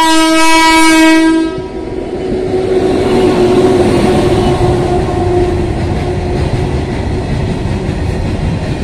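WAG-9 electric freight locomotive's horn sounding loudly, cutting off about a second and a half in. It is followed by the steady rumble and clatter of the locomotive and a long rake of open box wagons running past.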